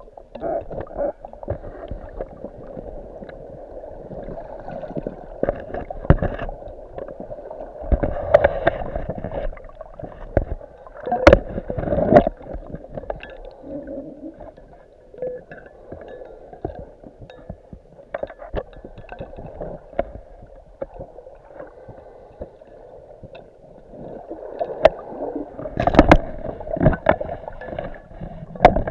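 Muffled underwater sound picked up by a camera in a waterproof housing: water surge and gurgling, scattered with small clicks and knocks. Louder bursts of bubbling and knocking come about eight, eleven and twenty-six seconds in.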